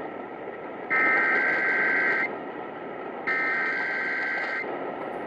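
Emergency Alert System Required Weekly Test header: two bursts of SAME digital data tones, each a bit over a second long and about a second apart, over a steady hiss of radio static.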